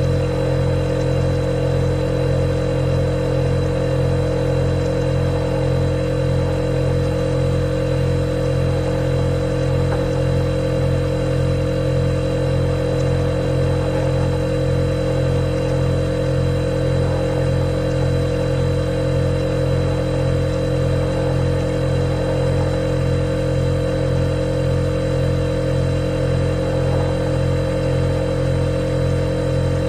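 Refrigerator running: a steady mechanical hum made of several fixed low tones, with a thin high-pitched whine over it.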